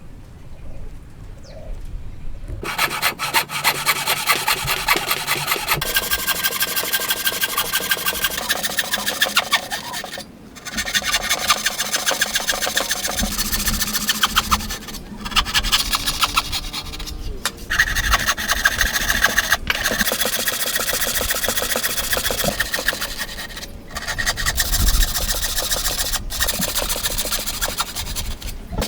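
A tool rasping against wood in rapid, continuous strokes, as when wood is sawn or filed. It starts about two and a half seconds in and runs in long stretches broken by several short pauses.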